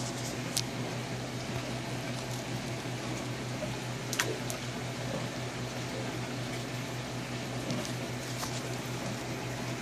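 Water splashing and trickling steadily from an aquarium filter's return into a large stock tank, over a low steady hum, with a couple of sharp ticks.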